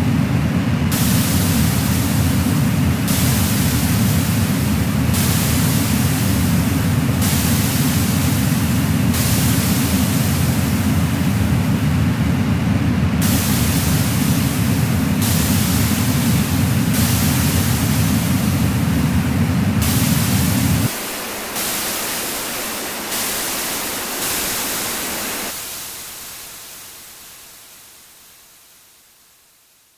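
Electronic noise music built from layered static. A loud, deep layer of noise cuts off about two-thirds of the way in. Above it, a high hiss switches on and off every couple of seconds. Then everything fades out near the end.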